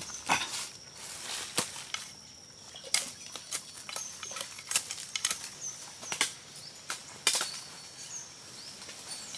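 Irregular sharp snaps and chops of a hooked knife cutting leafy branches and stems being snapped and stripped of leaves, with faint high chirps in the background.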